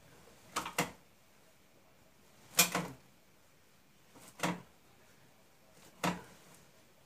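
Sharp knocks in a small room, irregularly spaced: a pair close together just over half a second in, the loudest double knock about two and a half seconds in, then single knocks at about four and a half and six seconds.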